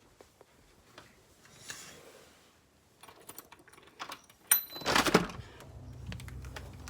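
Small clicks and rattles, then a sharp clatter of a door being opened about five seconds in, followed by a steady low hum and rumble.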